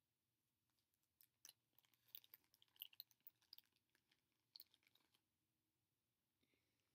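Faint, quick clicks and crackles of small pieces from an ear-stretching kit being handled and sorted, lasting a few seconds and then stopping.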